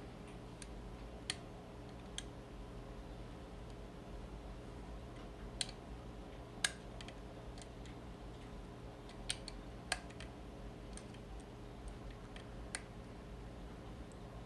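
About a dozen small, sharp metallic clicks at irregular intervals: a lock pick working the levers of a vintage US Mail four-lever padlock under tension from an Allen wrench.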